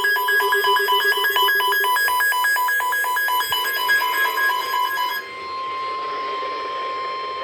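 An electronic alert alarm beeping rapidly, about four beeps a second, alternating between two pitches; it stops abruptly about five seconds in. A single steady tone near 1 kHz follows, the NOAA Weather Radio warning alarm tone that signals a warning is about to be broadcast.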